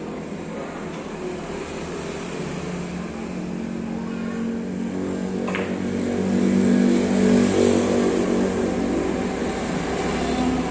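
A motor vehicle engine hums steadily and grows louder in the middle before easing off slightly. About five and a half seconds in, a single sharp click of a billiard shot cuts through it.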